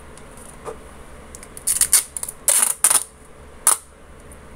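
Paper rustling and crinkling as it is handled on a wooden table, in three short bursts about two, two and a half, and three and a half seconds in.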